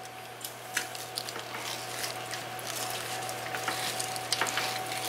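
Chef's knife sawing back and forth through a roast pork butt, crackling and scraping as it cuts the crusty outside, with many small irregular clicks.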